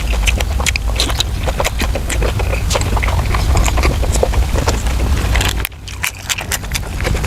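Close-miked chewing and mouth sounds of someone eating soft braised pork intestines: a dense run of wet clicks and smacks over a steady low rumble, pausing briefly a little before the end.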